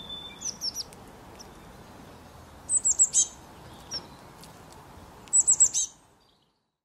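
Small songbird chirping: quick runs of four or five high, downward-sliding chirps, a few near the start and two clearer runs midway and near the end, over a soft steady hiss.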